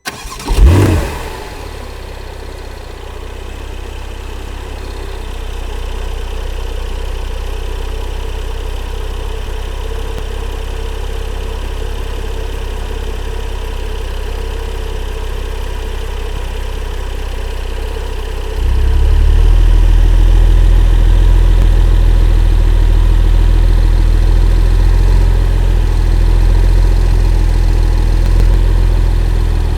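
Sports car engine starting: it catches with a short flare of revs, then settles into a steady idle. About eighteen seconds in, the low rumble of the idle becomes markedly louder and stays that way.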